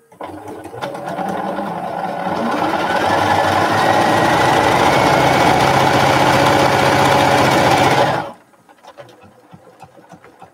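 Bernina electric sewing machine stitching a seam through fabric pieces. It speeds up over the first couple of seconds, runs at a steady rapid stitch, then stops abruptly about eight seconds in, followed by a few faint clicks.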